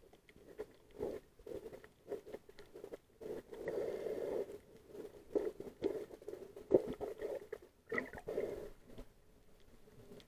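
Muffled underwater sound heard through a waterproof camera housing: irregular swishes and bubbling as a hand moves and crumbles food in the water, with scattered sharp clicks.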